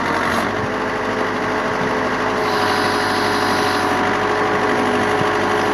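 Case 580D backhoe's engine running steadily while the backhoe works its boom, with a slight shift in the engine note about half a second in.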